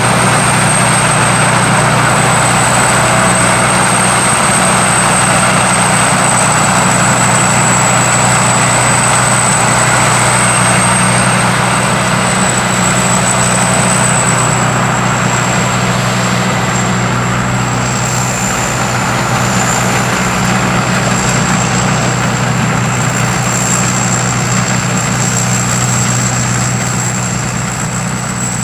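Rice combine harvester with a five-cylinder diesel engine running steadily under load, its engine and machinery making a dense, even din with a thin high whine above it.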